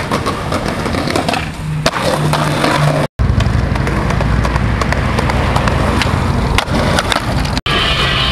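Skateboard wheels rolling on concrete, with sharp clacks from the board's tail and trucks during tricks. The sound cuts out abruptly for an instant about three seconds in and again near the end.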